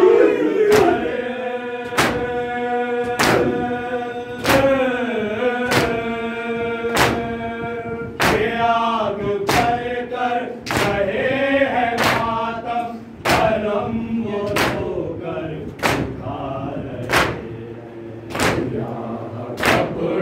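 Shia matam: a crowd of men beating their chests in unison, one sharp slap about every second and a quarter. Over the slaps, voices chant long drawn-out notes of a noha, fading out about two-thirds of the way through.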